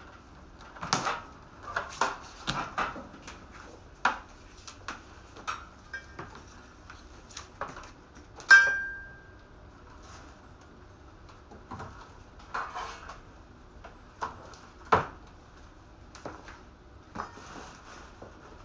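Scattered clicks, taps and knocks of hard objects being handled, with one loud sharp clink about eight and a half seconds in that rings briefly.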